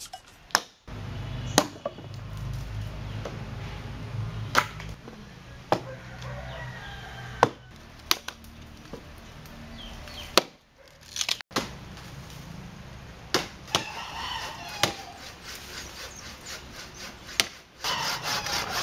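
Sharp wooden knocks and cracks every second or two as felled logs and branches are handled, over a low steady rumble. Near the end a handsaw starts cutting through a log in quick, even strokes.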